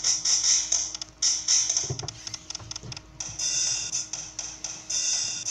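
Phone drum-kit app played by quick, uneven finger taps, mostly cymbal and hi-hat sounds ringing over one another. The hits come in four or so rough bursts with short gaps between them.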